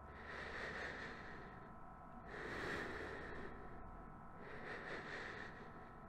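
Faint, even breathing through a lung-function test mouthpiece, with about three soft breaths roughly two seconds apart. This is relaxed tidal breathing, the opening stage of a DLCO test before the full exhalation.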